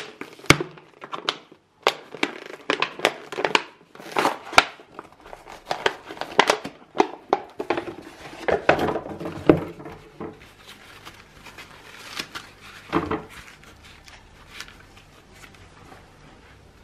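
Packaging being handled and unwrapped, with irregular crinkling and crackling for the first ten seconds or so, then fainter, sparser handling noise.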